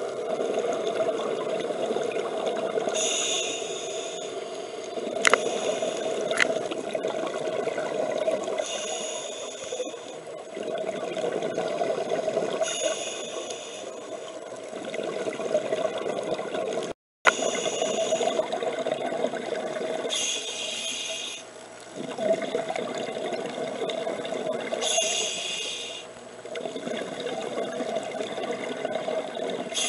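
Scuba regulator breathing underwater: a hiss with each inhalation about every four to five seconds, and bubbling between them. There are two sharp clicks about five and six seconds in, and a split-second dropout just past halfway.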